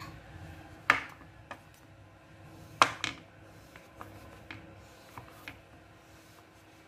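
Kitchen knife cutting a slab of dark compound chocolate on a wooden cutting board: sharp cracks and knocks as the blade goes through the chocolate and hits the board. Two loud ones come about one and three seconds in, with a few softer taps between, over a faint steady hum.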